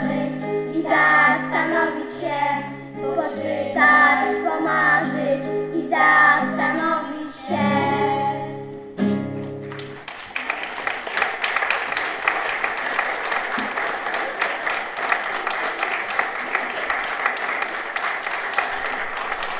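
Group of children singing with instrumental accompaniment; the song ends about halfway through, and an audience breaks into steady applause that lasts to the end.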